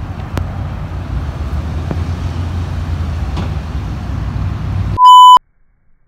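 Steady low rumble of road traffic with a few faint clicks. About five seconds in, a loud, short electronic beep at one steady pitch.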